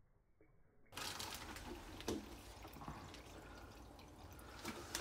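Faint water trickling and splashing from an aquarium's hang-on-back filter outflow, starting suddenly about a second in, with a few small drips or ticks.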